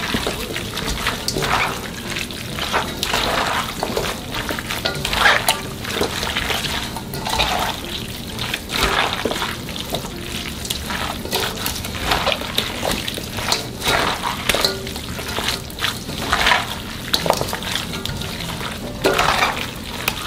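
Wet, squelching rustle of young radish greens being tossed and squeezed by hand through kimchi seasoning paste in a bowl, in irregular strokes every second or so.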